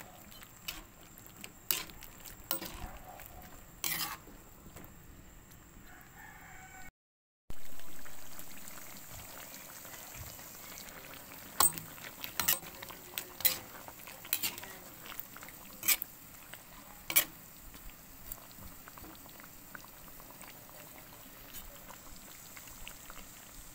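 A metal ladle stirring simmering chicken afritada in a pan, clinking against the pan now and then over a steady low bubbling hiss. The sound cuts out briefly about seven seconds in and comes back a little louder before settling.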